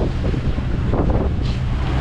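Wind buffeting the microphone in gusts, over the steady low drone of a boat's engine.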